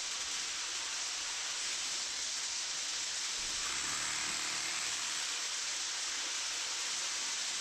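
Dough cakes (pao bing) deep-frying in hot oil: a steady sizzling hiss.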